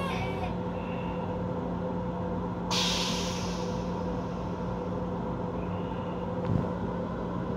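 Steady hum of an M7 commuter railcar heard from inside its small restroom. About three seconds in, a sudden hiss of released air starts and fades away over a second or so.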